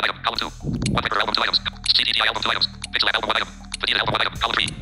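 Android TalkBack screen reader's rapid synthesized voice reading out album names as focus moves from tile to tile, in a fast, clipped chatter.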